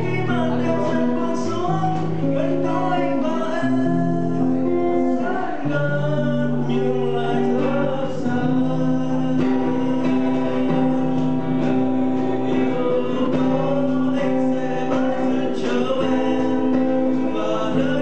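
A man singing while strumming an acoustic guitar, the chords held steady under a wavering vocal line.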